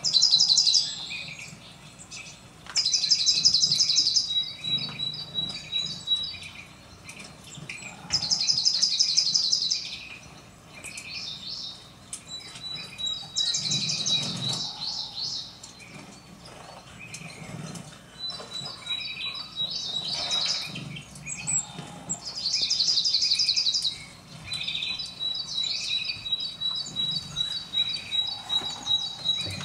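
Small songbirds singing, heard through a television's speaker: short, fast, high trills repeated every few seconds, with thin chirps in between.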